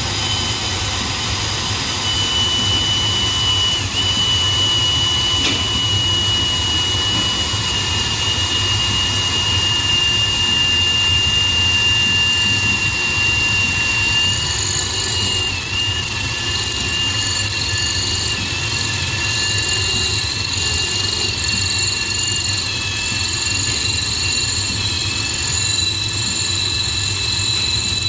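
Power drill running continuously under load as a Matco HyperStep step drill bit cuts into a cast-iron brake rotor. Its high whine sags slightly in pitch and wavers in the second half as the bit bites deeper.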